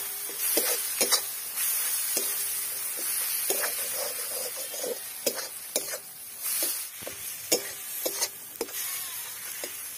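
Metal spatula stirring and scraping a thick spice masala around a metal kadai, with irregular scrapes and taps over a steady sizzle of frying oil. The masala is being fried until the raw smell of the spices cooks off.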